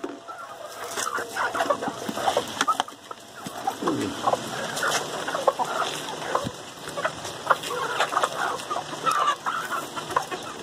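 A flock of feral chickens clucking as they feed, with many short, overlapping calls from several birds at once.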